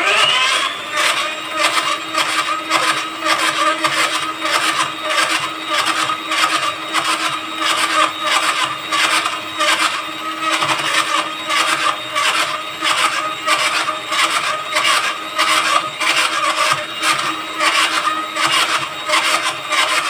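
Electric hand mixer switched on and running, its motor whine rising over the first second and then holding steady. A rhythmic pulse about twice a second comes through as the beaters work butter and powdered sugar in the bowl.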